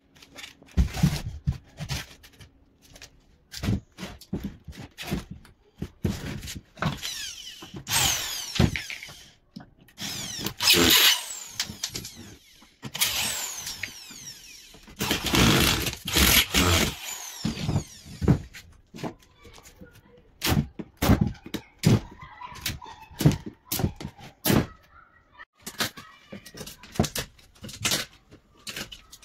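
Repeated knocks and taps, with several bursts of a power tool of one to three seconds each, its pitch sliding as it speeds up and slows.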